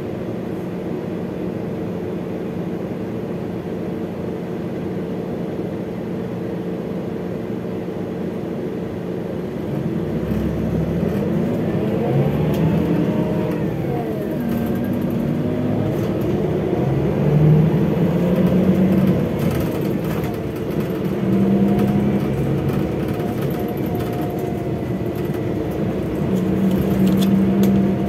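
Scania DC13 six-cylinder diesel in a Scania K360IB bus running steadily at idle, then about ten seconds in pulling away. The engine note climbs and drops back several times as the Opticruise automated gearbox shifts up through the gears.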